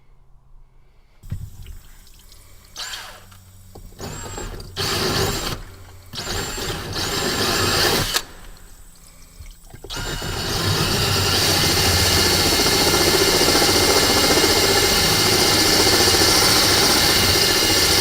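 Water splashing and pouring in short bursts. Then, about ten seconds in, a cordless drill starts running steadily, its 1/2-inch diamond-tipped bit grinding into wet glass.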